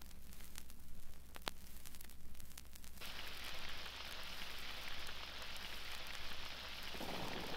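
Grado Prestige Blue stylus running in the lead-in groove of a vinyl record on an Audio-Technica AT-LP120 turntable: scattered clicks and crackle over a low hum, then about three seconds in a steady hiss sets in.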